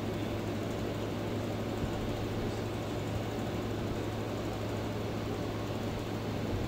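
Steady low hum with an even hiss beneath it, unchanging throughout: aquarium equipment running on a small tank.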